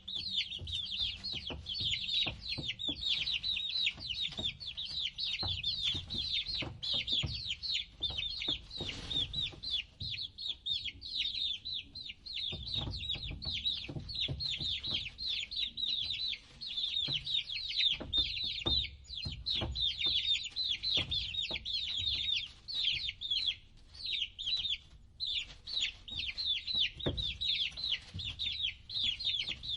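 A group of chicks peeping continuously: many short, high, falling chirps overlapping, with scattered light taps and knocks underneath.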